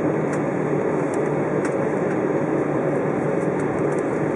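Cabin noise of an Embraer 190 on its takeoff roll: a steady, even rush from its wing-mounted GE CF34-10E turbofans mixed with the rolling of the wheels on the runway.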